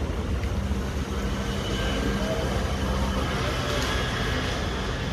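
Steady low rumble of city traffic, with the hum of a vehicle engine running nearby.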